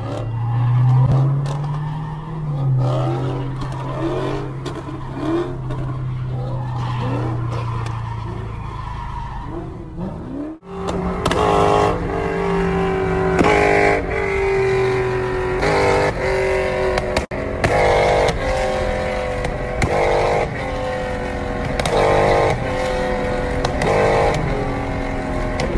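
A car drifting, its engine revving up and down while the tyres squeal. After a sudden cut about ten seconds in, a Dodge Charger's engine revs in repeated surges every couple of seconds under a steady whining tone.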